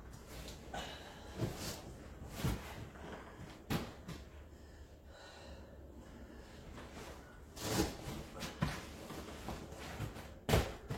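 Irregular knocks and clunks of something being handled, a few seconds apart, the loudest near the end.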